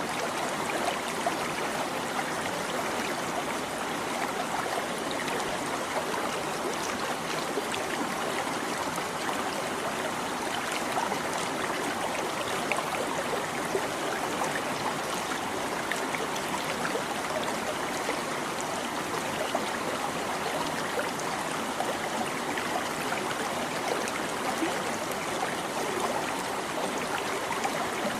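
Shallow stream babbling and trickling over rocks, a steady flow of small splashes and gurgles.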